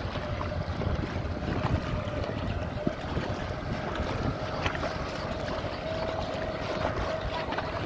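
Tractor engine running with a steady droning note as it drives through shallow water, with a low rumble of wind buffeting the microphone.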